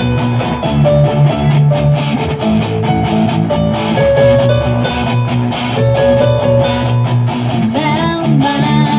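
Live band playing rock music, with electric guitar over a steady drum beat.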